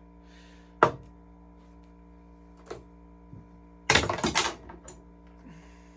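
Gun-cleaning rod and its fittings handled on a wooden workbench: a sharp click about a second in, a couple of light taps, then a brief clatter of several quick knocks about four seconds in as a part is fumbled. A steady low hum runs underneath.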